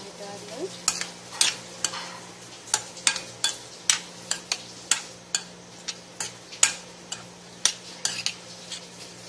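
Metal spoon stirring and tossing a chopped tomato salad in a bowl: irregular scrapes and clicks against the bowl, about two a second.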